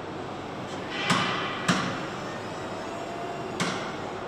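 Steady factory hum with three sharp metal clanks, about a second in, shortly after, and near the end, as a forklift moves a stack of metal ingots at a furnace loading door.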